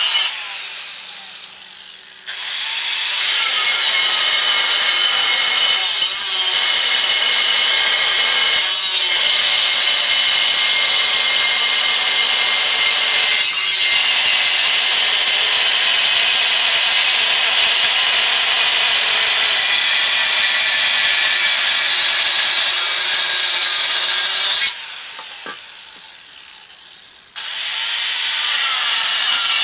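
Angle grinder with a thin cut-off wheel cutting through a Volkswagen transmission case's bell housing: a loud, steady, high-pitched grinding. Twice it is switched off and winds down for two or three seconds, then is started again and whines back up to speed.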